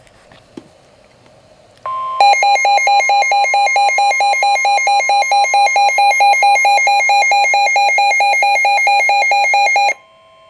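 Emergency alert alarm for a Special Marine Warning: a steady warning tone near 1 kHz, the NOAA Weather Radio 1050 Hz alert tone, starts about two seconds in. A loud electronic beep alternating between two pitches, about four to five times a second, then sounds over it until near the end. The beep stops, and the steady tone goes on alone briefly.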